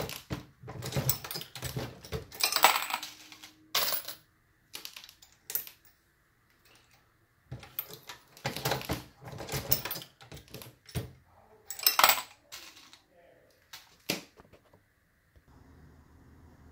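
Dillon RL550B progressive reloading press being worked by hand while loading .223: irregular bursts of metallic clanks and clicks from the handle strokes and press mechanism, with brass cases clinking.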